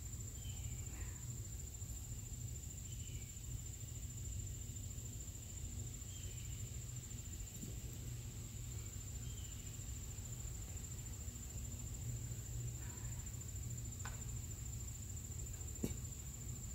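Steady high-pitched insect trilling, with faint bird chirps every few seconds, a low rumble underneath, and a sharp click near the end.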